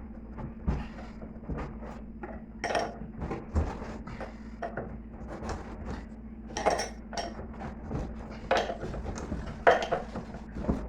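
Metal tools clinking and knocking against metal parts at irregular intervals while a stuck part of a washing machine is worked loose, over a steady low hum.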